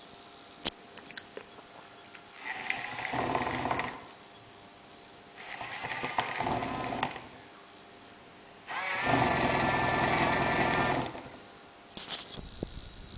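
Small electric motor of a homemade model washing machine running in three separate bursts, each a second and a half to two seconds long, the last one loudest and longest. A few light clicks come before the first burst.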